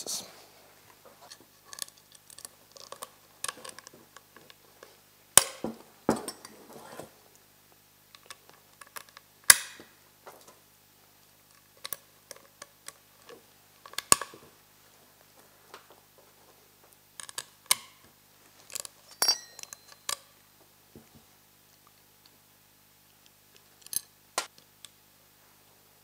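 Scattered metallic clinks and taps as small stainless steel screws, nuts and a hand wrench are handled against the metal hubs of snowmobile bogie wheels during assembly, with a few sharper knocks.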